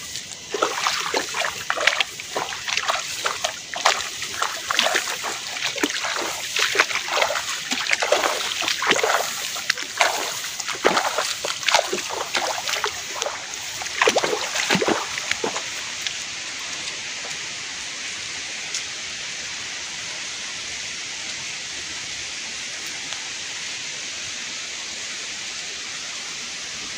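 Footsteps sloshing and splashing through a wet, flooded rice paddy, with rice plants swishing against the legs. After about sixteen seconds the steps stop and a steady hiss remains.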